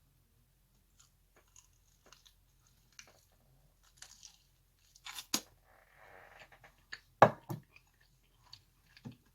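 Close-up chewing and crunching of a fried chicken wing eaten with Takis rolled tortilla chips: scattered crisp crackles, with louder crunching bites about five and seven seconds in.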